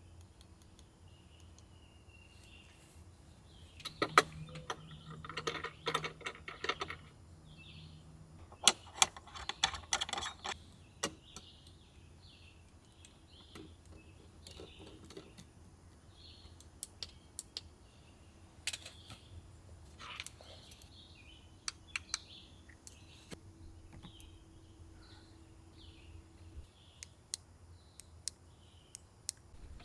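Birds chirping in short calls throughout, with two bursts of clicking and clattering handling noise, about four to seven seconds in and again about nine to eleven seconds in, and scattered single clicks after.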